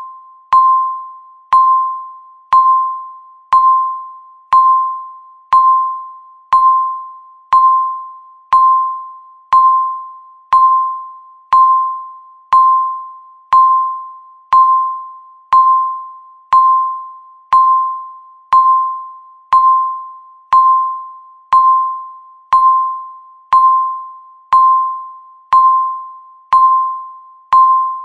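Countdown timer beeping once a second: a single-pitched electronic chime that starts sharply and fades away before the next one, marking each second left.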